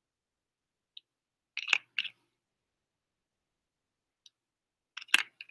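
A handful of short plastic clicks and taps as microcentrifuge spin columns and collection tubes are handled and the flow-through liquid is tipped out into a glass beaker. They come singly and in small clusters, with silence between.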